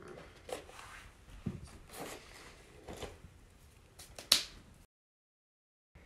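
A small box with a metal latch being handled: a few light knocks and scrapes, then a sharp click about four seconds in. After that the sound cuts off completely.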